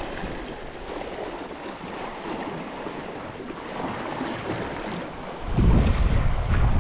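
Sea swell sloshing and washing against the rocks at the waterline. From about five and a half seconds in, wind buffets the microphone with a loud low rumble.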